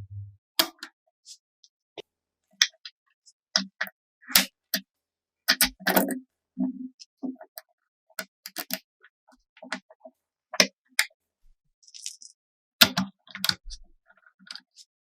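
Irregular clicks, taps and light knocks of small parts being handled and set down during hand crafting, some with a dull thud underneath.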